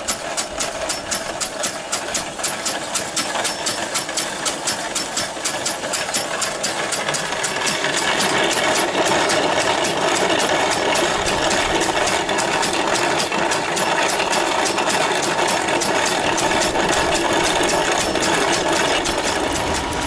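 Homemade steam engine driving a hand corn grinder, running with a steady beat about four times a second while the grinder grinds corn into meal. The grinding grows louder about eight seconds in.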